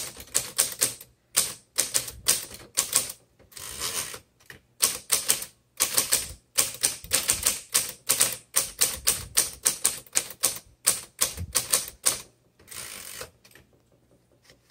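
Typing on a 1956 Royal Quiet De Luxe manual typewriter: quick, irregular key strikes several a second, broken by two longer rasping runs, one about four seconds in and one near the end, before the typing stops. This is a test of the freshly installed ribbon.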